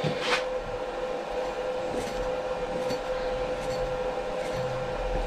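Bridgeport milling machine spindle running with a steady hum, a drill bit turning in its chuck, with a click just after the start and a few faint light ticks later on.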